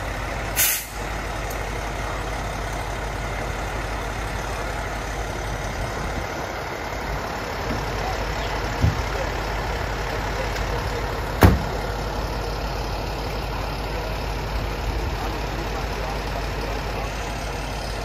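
Fire engine's diesel engine idling steadily. A short burst of air brake hiss comes about half a second in, and a single sharp bang, the cab door being shut, about two-thirds of the way through.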